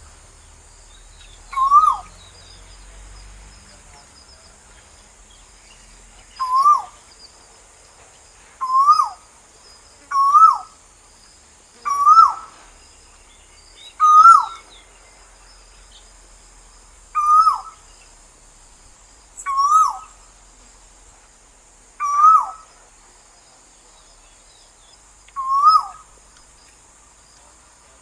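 Asian koel calling: a clear note that rises and then drops sharply, repeated about ten times at intervals of two to three seconds. A faint steady high hiss runs underneath.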